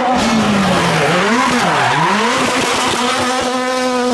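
Rally car engine at high revs, its pitch dipping sharply and climbing back twice in the middle as the throttle is lifted and reapplied.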